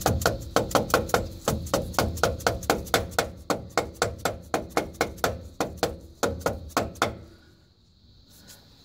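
Dead blow hammer tapping a steel pinion flange onto the front differential's pinion shaft, a fast even run of about four knocks a second that stops about seven seconds in. The flange is being driven onto the shaft splines over a freshly installed pinion seal.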